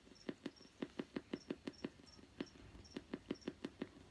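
Spirit box scanning through radio stations: a rapid, even run of clicks, about five a second, with brief blips and static between them and no voice coming through.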